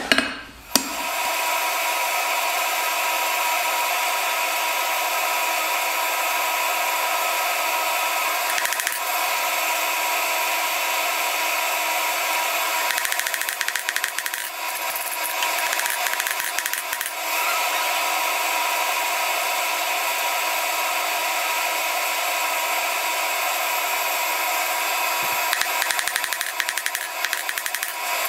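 Forge air blower running with a steady rushing noise, with faint knocks of hammer blows on hot steel at the anvil around the middle and again near the end.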